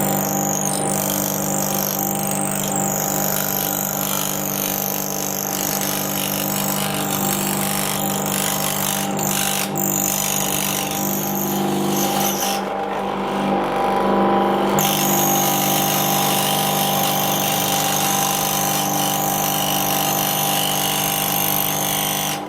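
Pullmax P13 sheet-metal machine running: a steady electric-motor hum with the rapid, repetitive clatter of its reciprocating ram.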